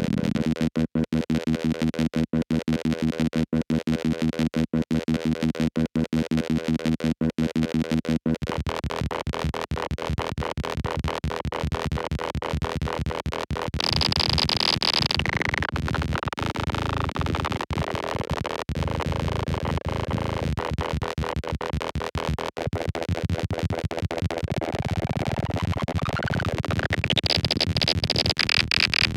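Lorre-Mill Double Knot V2 analog synthesizer playing. For about eight seconds a steady pitched drone pulses in an even rhythm. It then turns into a denser, rapidly pulsing buzz, with a high tone that sweeps down around the middle and another that sweeps up near the end.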